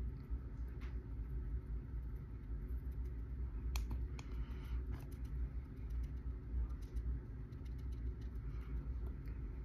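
Steady low background hum, with a few faint sharp clicks about one, four and five seconds in.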